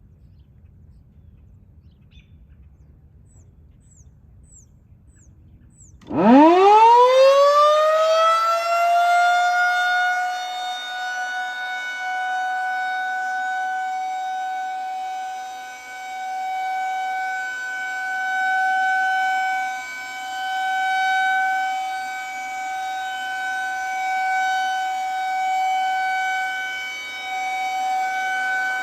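Federal Signal 2001-130 electro-mechanical outdoor warning siren starting up about six seconds in. Its pitch climbs fast from a low growl and settles into a steady tone, the alert signal. The sound swells and fades every few seconds as the rotating siren turns.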